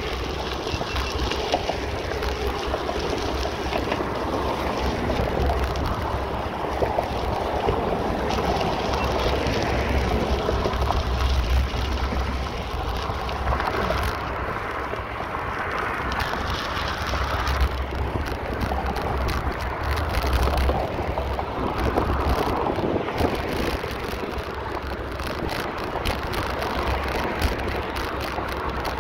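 Wind buffeting the microphone on a moving bicycle: a steady low rumble with a rushing hiss over it.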